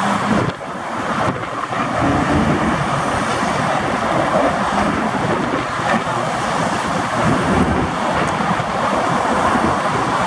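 Steady traffic noise on a bridge roadway: engines and tyres of cars, pickups and the diesel barrier transfer machine ("zipper truck") moving slowly past close by.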